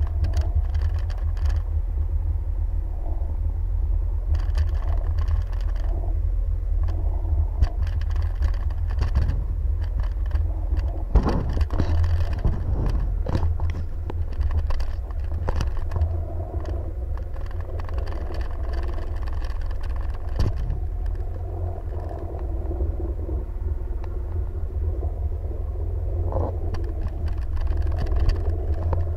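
Jet ski running over open water: a steady low rumble with a few sharp knocks near the middle.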